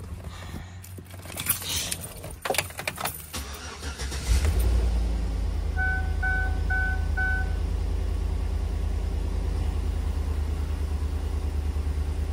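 Keys jangling and clicking in the ignition, then about four seconds in the Chevy Tahoe's engine starts and settles into a steady idle, its first run after the oil pressure switch was replaced. A few seconds after the start, a warning chime beeps four times.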